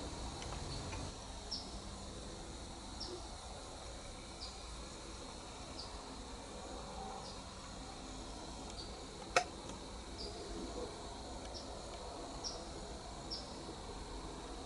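Field ambience of insects, likely crickets: a steady high drone with short high chirps repeating about every second and a half. A single sharp click comes about nine seconds in.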